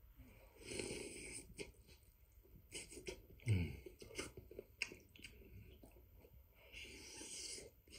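Close-up eating sounds of a man chewing stewed goat meat and potato: wet chewing with scattered mouth clicks and smacks. Two longer hissing stretches come near the start and near the end, and a brief low sound that falls in pitch, the loudest moment, comes about halfway through.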